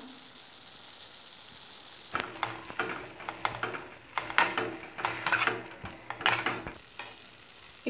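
Grated beetroot sizzling in a stainless-steel pan, then a spatula scraping and stirring it against the pan in short, irregular strokes from about two seconds in.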